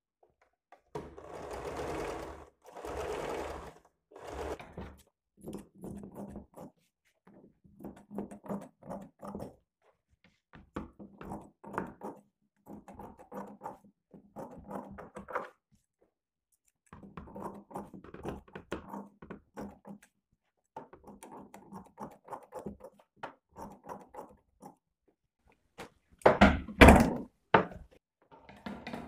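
Sewing machine stitching the lining and blouse fabric together in short runs of one to three seconds with brief pauses between them. A sharp thunk near the end is the loudest sound.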